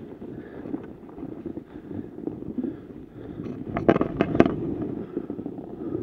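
Skis scraping and chattering over lumpy, tracked-up snow, with a few sharp clacks about four seconds in.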